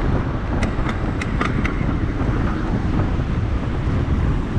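Wind buffeting the microphone of a camera riding along on a moving bicycle: a steady low rumble with a few light clicks in the first couple of seconds.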